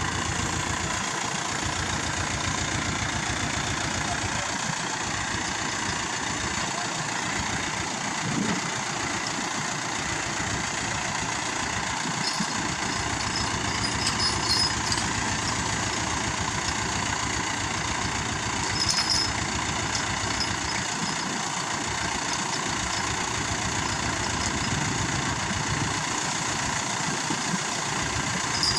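Heavy diesel engine of a construction machine running steadily. A few brief high-pitched metallic clinks or squeaks come about halfway through.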